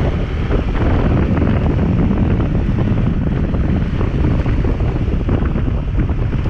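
Wind buffeting the microphone of a motorcycle rider's action camera, with the KTM 390 Adventure's single-cylinder engine running underneath as the bike is ridden.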